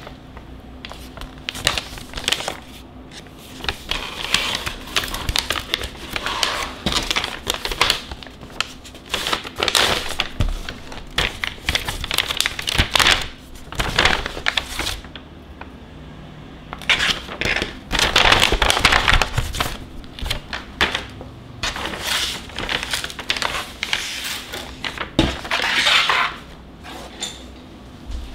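Crinkling and rustling of a white plastic mailer bag as it is handled, torn open and pulled off a boxed mini photo studio, coming in irregular bursts. There are a few light knocks as the box is moved on the table.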